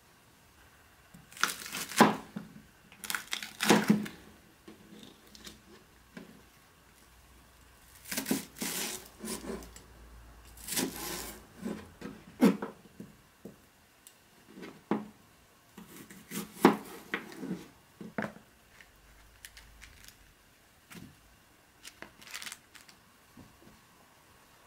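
Knife cutting bok choy stems on a cutting board, in several short bursts of cuts and taps with pauses between.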